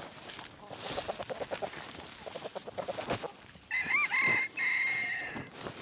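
Free-range chickens: soft rapid clucking for the first few seconds, then a rooster crows about four seconds in, a pitched call that bends at first and ends in a long held note, the loudest sound here.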